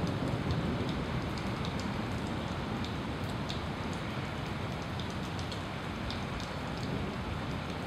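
Steady rain falling during a thunderstorm, with sharp ticks of individual drops striking close by. A low rumble eases off over the first couple of seconds.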